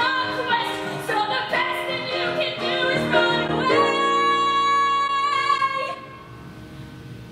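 A young female singer belting a musical-theatre song over keyboard accompaniment, rising to one long held high note about four seconds in. The voice and keyboard stop about six seconds in.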